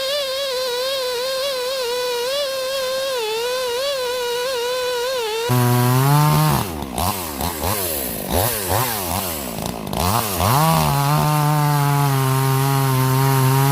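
Garwinner 62cc two-stroke chainsaw running at high revs as it cuts wood, its pitch wavering. About five and a half seconds in, the sound changes abruptly to a much lower pitch. For several seconds the revs repeatedly drop and climb, then the saw settles into steady running.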